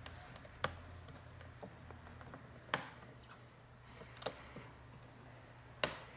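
Small, sharp clicks and light ticks of fingers or a tool working the display cable connector on the back of a laptop LCD panel. There are four louder clicks about a second and a half apart.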